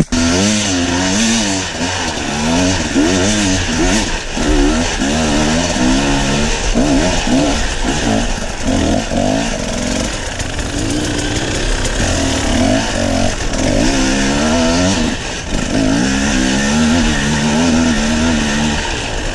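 Enduro dirt bike engine heard from the rider's helmet camera, working over rocky ground with the revs rising and falling again and again as the throttle is worked.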